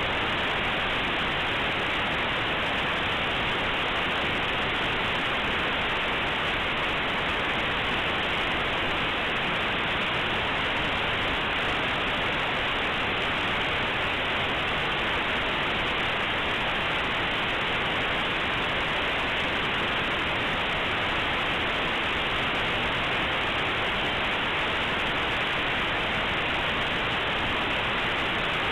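Compressed Linux kernel data played as raw audio through aplay: a steady, featureless static hiss with no tones or rhythm, because compressed data is close to random. The hiss has a dull top end, as aplay plays raw data at its low default telephone-like sample rate.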